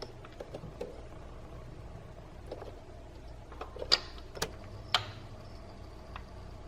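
Hands working on parts in an engine bay: scattered light clicks and taps, with three sharper clicks at about four, four and a half and five seconds in, over a low steady hum.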